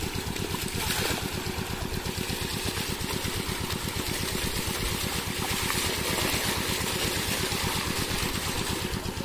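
Diesel engine of an irrigation water pump set running steadily, with a rapid, even firing beat, while water gushes out of the plastic delivery pipe.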